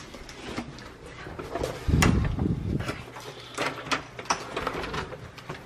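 Camera handling noise as the camera is moved about: a heavy low thump about two seconds in, with scattered clicks and rustling.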